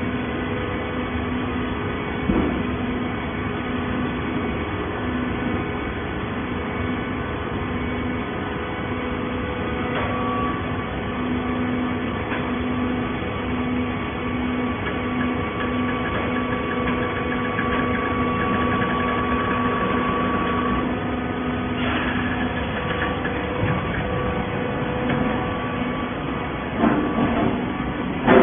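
Hydraulic scrap carton baler running: a steady mechanical hum of the power unit, with a few short clunks, the loudest at the very end.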